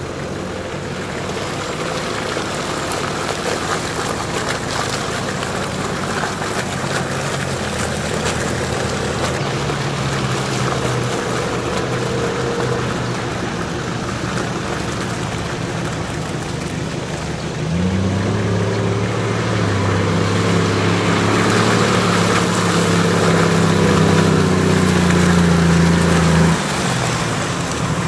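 Engines of off-road 4x4 SUVs running as they drive along a muddy track. A closer engine's steady drone gets louder about two-thirds of the way in, then cuts off sharply just before the end.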